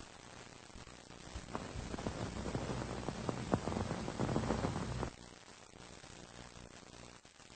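Surface hiss and crackle of an old 1930s radio transcription recording after the programme has ended. Crackling and clicks swell for a few seconds, then cut off suddenly about five seconds in, leaving faint hiss and a low hum.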